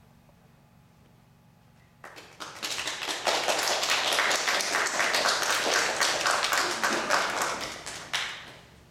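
Audience applauding: a dense patter of hand claps that begins about two seconds in after a brief hush, quickly fills out, and stops fairly abruptly near the end.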